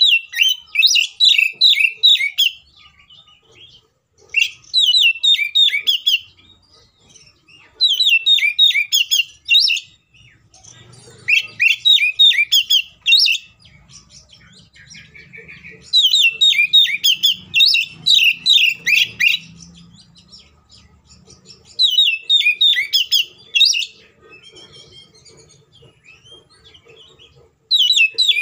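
Oriental magpie-robin singing loud bursts of about two seconds each, every few seconds, about seven in all: each burst is a fast string of short, downward-slurred notes.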